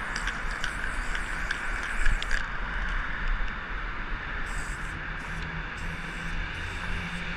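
Steady road-traffic rumble from a busy city avenue under a concrete overpass. For the first couple of seconds a marker scratches and ticks over rough concrete.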